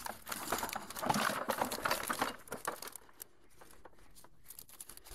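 Mesh fishing keepnet being pulled about and shaken over a basin: the netting rustles and crackles, loudest for the first three seconds, then dies down to scattered clicks.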